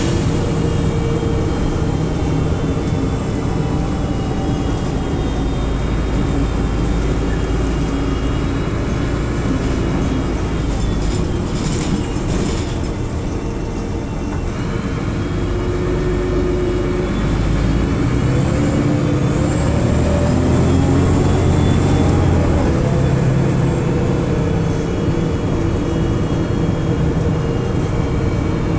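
DAF DB250 double-decker bus heard from inside the passenger saloon while on the move: diesel engine and drivetrain running under the noise of travel. It eases off about halfway through, then pulls harder again with a rising whine.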